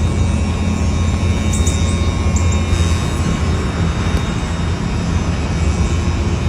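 Steady, loud, low engine rumble with a faint steady whine above it.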